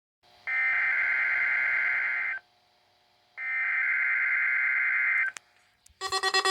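NOAA Weather Radio SAME header: two bursts of buzzy, warbling digital data tones, each about two seconds long, with about a second's gap between them, marking the start of a Required Weekly Test. Near the end a different, pulsing tone with several pitches starts.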